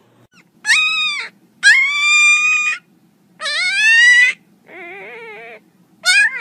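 An animal, most likely a pet, calling in five drawn-out, high-pitched cries of about a second each with short gaps between; the fourth cry is lower and quieter.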